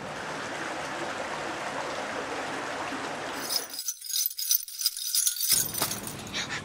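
A metallic jingling and rattling, like keys or small bells being shaken, comes in about three and a half seconds in and lasts about two seconds over a steady hiss: the weird sound in the night.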